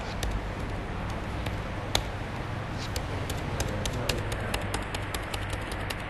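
Computer keyboard typing: irregular key clicks that come quicker from about three seconds in, over a steady low hum.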